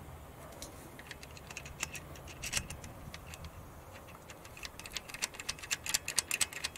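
Light metallic clicks and taps of a steel socket extension and an injector hold-down clamp being worked into place on a common-rail diesel injector. The clicks are scattered at first and come in quick irregular runs near the end.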